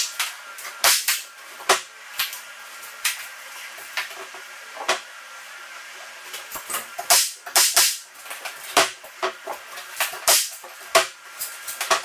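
Pneumatic nail gun firing a series of sharp, irregularly spaced shots, with a quick cluster partway through, as the door jamb is nailed off after shimming.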